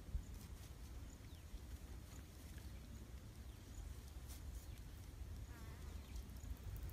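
Quiet outdoor ambience: a steady low rumble with faint high ticks and light clicks, and a short warbling chirp near the end.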